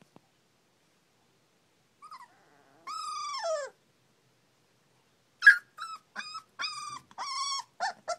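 Young puppies whimpering: one long cry that falls in pitch about three seconds in, then a quick run of short high cries from about halfway on.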